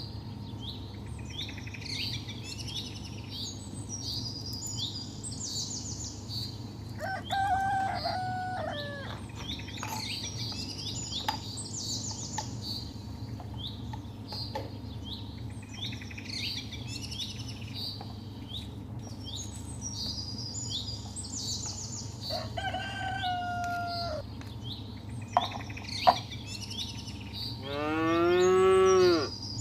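Small birds chirping all the way through, with a rooster crowing twice and a louder, drawn-out fowl call near the end. Two sharp clicks come shortly before that last call.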